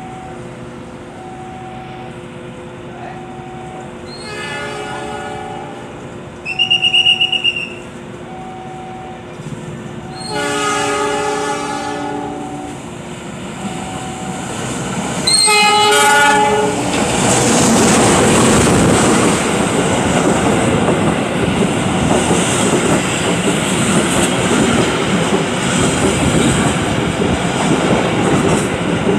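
A diesel-hauled Argo Parahyangan passenger train approaches and passes close by. Its horn sounds in several blasts, and a single shrill high whistle is the loudest sound. From about halfway on, the train runs past alongside with a steady rumble and wheels clattering over rail joints. A short two-note beeping repeats about once a second through the first half.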